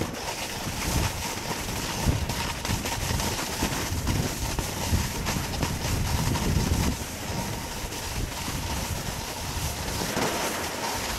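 Snowboard sliding and scraping over snow, a continuous rough rumble, with wind buffeting the microphone.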